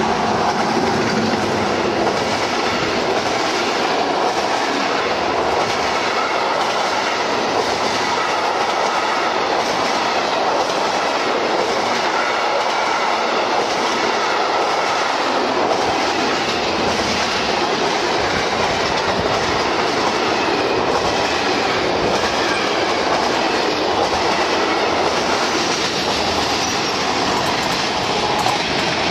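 Freight train hauled by an electric locomotive passing close by at speed. Its wagons' wheels on the rails make a loud, steady noise throughout.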